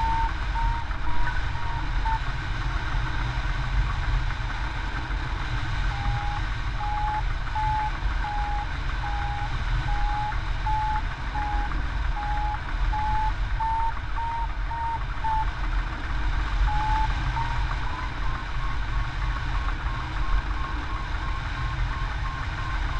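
Hang glider variometer beeping in a steady chain of short beeps, the pitch sinking and rising as the climb rate changes and sitting higher near the end; the beeping signals the glider is climbing in lift. Under it, a steady rush of wind on the microphone from the airflow in flight.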